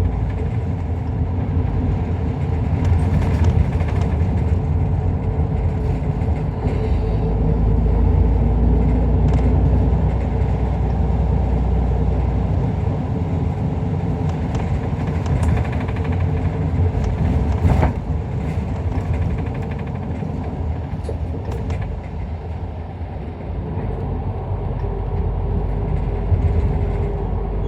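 Inside an Isuzu Erga Mio one-step city bus under way: the diesel engine and road noise make a steady low drone, with a few sharp clicks and rattles from the cabin.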